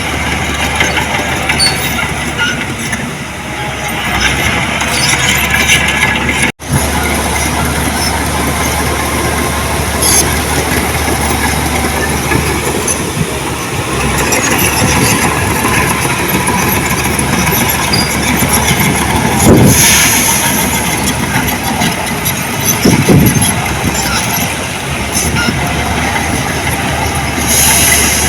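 Heavy earthmoving machinery running, a steady diesel engine din. It drops out for an instant about six and a half seconds in.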